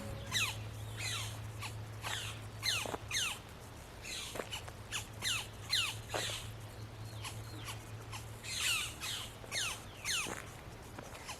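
Yellow-shafted flicker nestlings calling from the nest cavity: a steady run of short, high calls that slide downward in pitch, several a second, coming in clusters.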